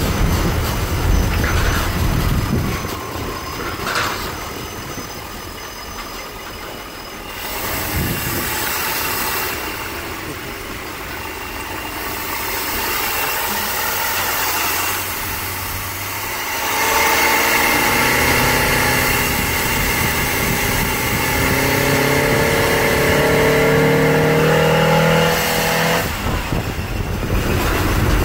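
Bus with a 350 small-block Chevy V8, heard from inside the cabin while driving, the body and windows rattling. A little over halfway through, the engine note rises steadily as it accelerates, then drops away near the end.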